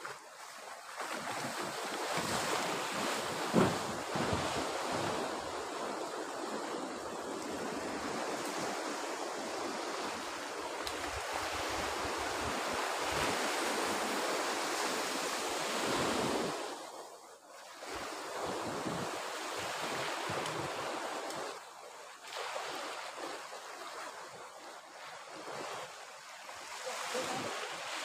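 Surf breaking and washing up a sandy beach in a steady rush, with wind gusting on the microphone. There is one sharp thump about three and a half seconds in. The rush drops briefly about two-thirds of the way through and stays quieter after that.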